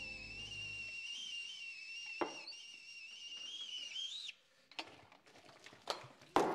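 Stovetop whistling kettle at the boil: a steady, high whistle that wavers slightly, then cuts off suddenly about four seconds in as the kettle is lifted from the burner. A single knock comes about two seconds in, and a sharp knock near the end.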